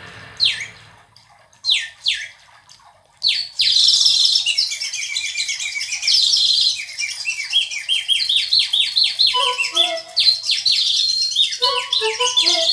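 Recorded bird calls playing through SABA papillon resonant speaker cabinets as the intro of a song. A few single downward-sweeping calls come first, then from about three and a half seconds a dense run of rapid chirps. Short melodic instrument notes in a lower register join about nine seconds in.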